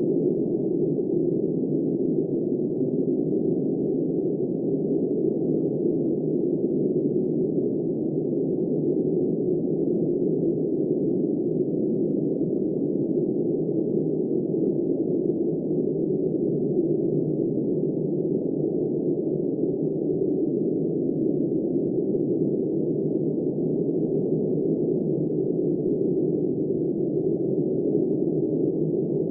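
Steady, deep rushing of blizzard wind, an even muffled roar with no separate gusts or other events.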